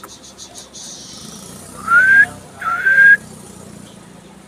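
Two short whistles about half a second apart near the middle, each sliding up in pitch and then holding.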